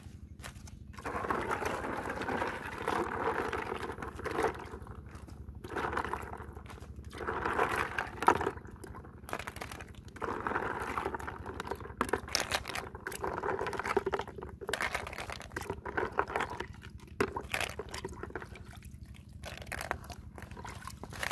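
Snails and a splash of water tipped from a plastic bucket onto lotus leaves, with shells knocking together and the leaves rustling as the snails are spread by hand. The sound comes in irregular stretches, with one sharp click about eight seconds in.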